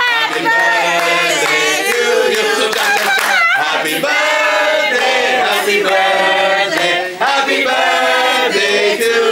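A group of voices singing a birthday song together, with long held notes.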